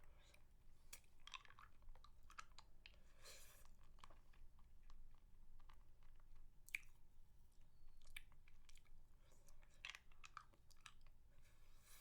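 Faint, close-miked mouth sounds from eating a spicy mango lollipop: wet clicks and smacks at irregular intervals, with a short rustling smear about three seconds in.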